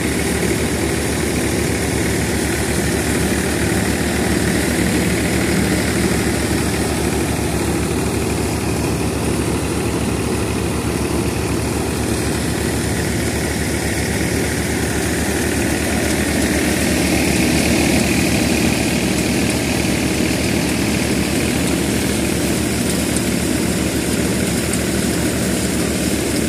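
Threshing machine driven by a Mahindra diesel tractor, running steadily under load as dry crop is fed into it. The engine's running and the machine's drum noise blend into one loud, even sound.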